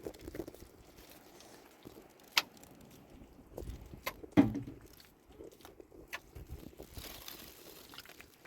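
A few scattered sharp clicks and knocks over faint background, the loudest about four and a half seconds in.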